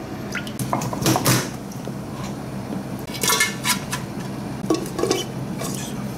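Stainless steel cooking pot being handled, with pieces of sturgeon head set into it: a series of metal knocks and clinks, several clusters of them spread through.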